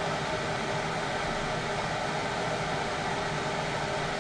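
Steady whir of a running fan, with a low hum beneath it.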